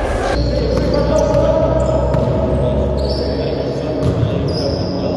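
Basketball bouncing on a sports hall floor, with players' footsteps, in an echoing hall.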